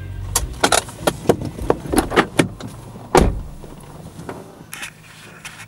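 Clicks and rattles of handling inside a parked car, then one heavy thump about three seconds in. The engine's low hum dies away after the thump.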